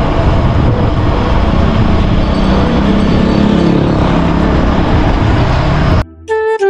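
Wind rushing and buffeting on the microphone of a camera riding on a moving road bicycle, mixed with road noise. About six seconds in it cuts off suddenly and a flute melody begins.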